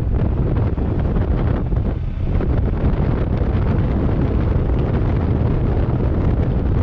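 Heavy wind buffeting the microphone of a camera on a motorcycle riding at speed: a steady, loud low rumble.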